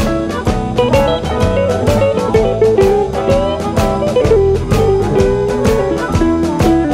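Instrumental electric blues shuffle: lead guitar plays a line of bent, sliding notes over a steady drum-kit beat.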